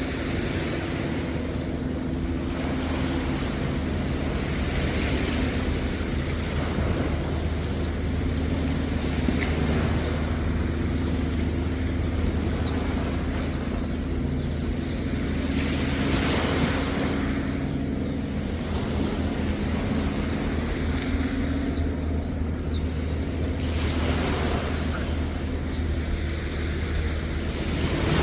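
Sea waves washing onto the beach, swelling and ebbing every few seconds, over a steady low engine hum. A few faint high chirps come in about two-thirds of the way through.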